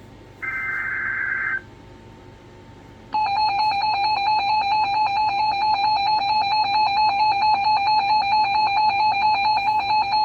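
Emergency Alert System SAME header, a screechy digital data burst of about a second that ends about a second and a half in and carries the alert's coded details. After a short gap, about three seconds in, the EAS attention signal starts: a loud, steady alarm tone with a fast pulsing flutter, which announces that the alert's voice message follows.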